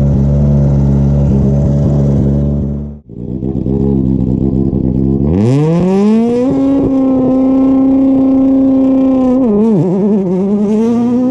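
Hyundai i20 Coupe WRC rally car's 1.6-litre turbocharged four-cylinder engine idling up close, then, after a sudden break, revving up and holding high revs on the start line. Near the end the revs dip and climb again as the car launches away.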